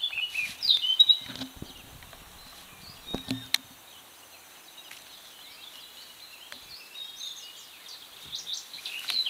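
Several birds chirping and singing, loudest about a second in and again near the end. A few short knocks and rustles come between one and three and a half seconds in.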